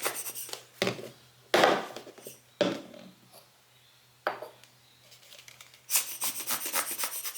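Several separate puffs of air blown onto a lens element to clear dust, some short and one longer run of rapid puffs near the end, with light handling knocks.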